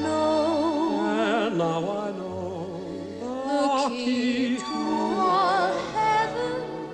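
Background music: a slow romantic ballad, with a voice holding long notes with wide vibrato over instrumental accompaniment.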